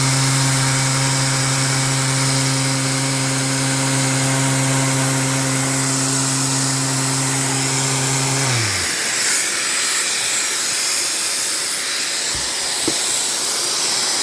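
Electric sander running on epoxy resin: a steady motor hum over a gritty hiss. About eight and a half seconds in, the motor winds down and stops, while a hiss goes on.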